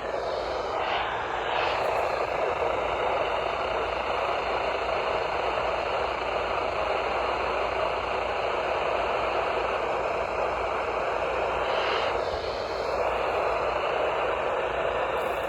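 Steady hiss of radio static from a receiver, changing briefly about a second in and again around twelve seconds in.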